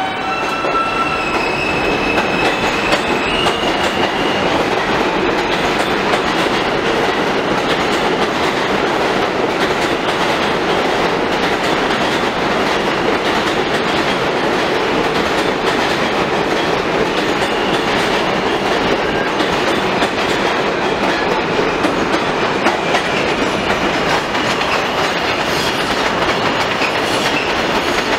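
New York City subway F train pulling out of an elevated station: in the first few seconds its motors whine in rising steps as it speeds up. After that comes a long, steady, loud rumble and clatter of the cars' wheels over the rail joints as the train passes.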